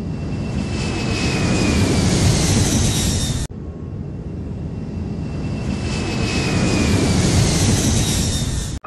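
Jet airplane engine noise: a loud rush that swells, with a high whine sliding slowly down in pitch. The same clip plays twice, cut off abruptly about three and a half seconds in and again at the end.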